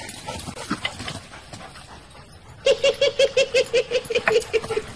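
A dog yelping in a fast, high-pitched run of short yips, about five a second, starting a little past halfway and going on to the end.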